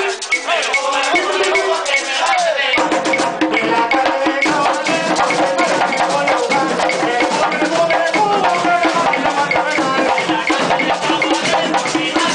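Live Puerto Rican plena: panderos (hand-held frame drums) beaten in a driving rhythm with a güiro scraped along, and a group of voices singing over them.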